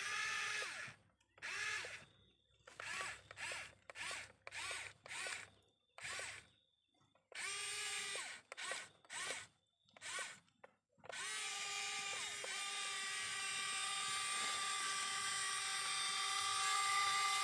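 Small electric motor whining, switched on and off in a string of short bursts that each spin up. Near the middle it settles into one long, steady run.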